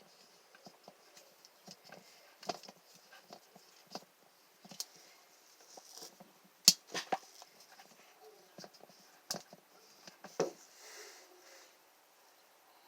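Scattered small clicks and taps of a windshield chip repair bridge and injector being handled and fitted against the glass, the sharpest click about halfway through.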